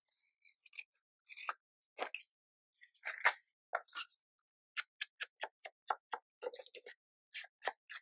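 Faint snips of scissors cutting paper, then a quick, even run of soft taps, about four a second, as a foam ink blending tool is dabbed on an ink pad and onto the paper's edge.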